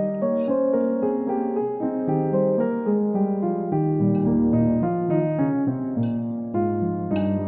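Background piano music, a run of single held notes.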